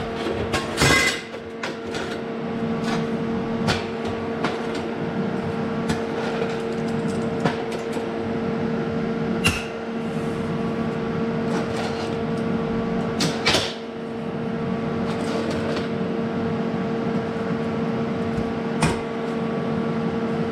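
A steady electrical hum runs under scattered sharp clicks and metal knocks of parts being handled and fitted. The loudest knocks come about a second in and again about two-thirds of the way through.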